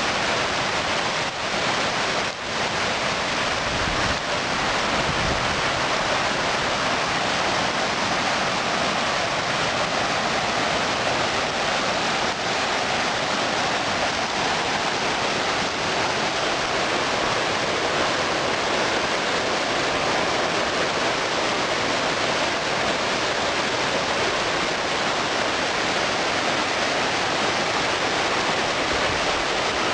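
Kamweti River water rushing steadily over its rocks, a continuous even roar.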